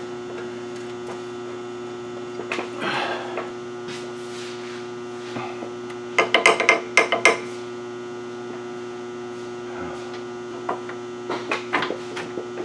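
Steady electrical mains hum, with a quick run of about six sharp metallic knocks about six seconds in and a few lighter clicks near the end, as steel suspension parts of a truck's front end are handled and knocked into place.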